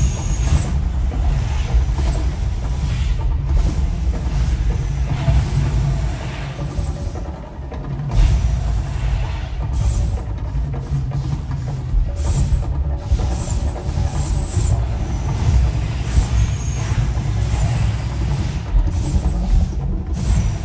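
Artificial volcano eruption show: a loud, deep rumbling with a percussion soundtrack, broken by repeated short hissing bursts as the gas fire jets go off. The rumble eases for a moment about seven seconds in, then comes back.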